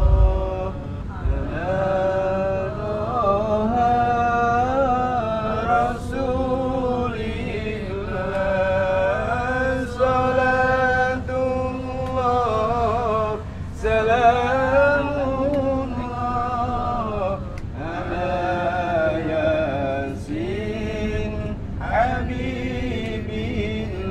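Voices chanting a slow melody with long, wavering held notes, over a low steady rumble.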